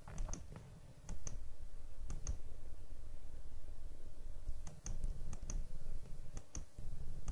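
Sharp clicks, mostly in close pairs, recurring every second or so. A low steady rumble comes in about a second in.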